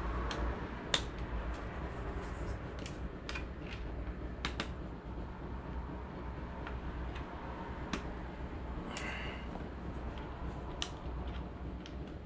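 Scattered small clicks and taps as the LED grow light's bar cable connectors are handled and plugged in, over a steady low hum.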